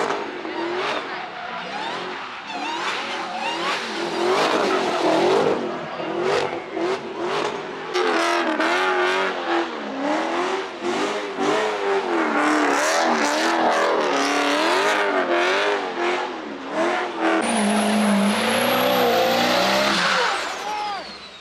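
Car engines revving hard during burnouts and donuts, the engine pitch bouncing up and down with tyres screeching. From about three-quarters of the way in, a diesel pickup's engine revs under load with a high whistle over it.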